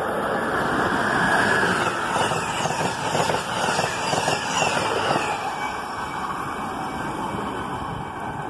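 An Amtrak electric passenger train with Amfleet coaches passes through the station at speed. Its rush of wheels and air swells to a peak, then comes a quick run of wheel clicks over the rail joints and a high whine falling in pitch as it goes by. The noise eases off as the train draws away.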